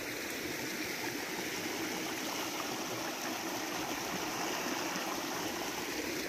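A small stream flowing, a steady, even rush of water.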